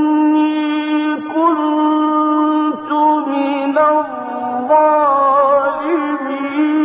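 A male Qur'an reciter chanting in the melodic mujawwad style, drawing out one long ornamented phrase. The held note is steady, steps down about four seconds in, and glides lower near the end.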